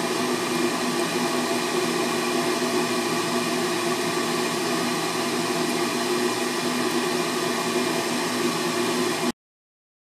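High-efficiency furnace's draft inducer blower running: a steady whir with a hum, cutting off suddenly near the end.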